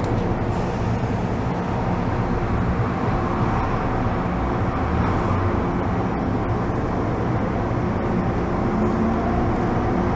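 MTR M-train EMU under way, heard from inside the car: a steady rumble of wheels on rail under a traction-motor hum. Near the end one motor tone rises in pitch.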